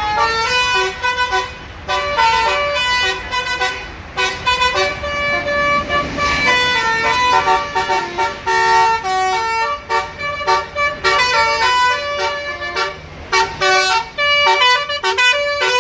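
Basuri horn, a set of roof-mounted multi-note air horn trumpets on a tour bus, playing a tune: a quick run of held notes stepping up and down with short breaks between them.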